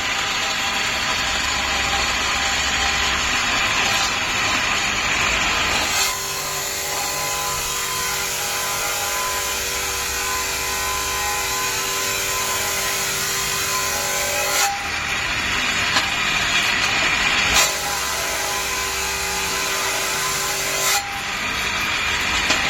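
Profile-tube cleaning machine running as its cleaning heads work along an 80×80 mm square steel tube: a continuous loud grinding hiss. A steady hum comes in about six seconds in, breaks off partway through, returns and breaks off again, each change sudden.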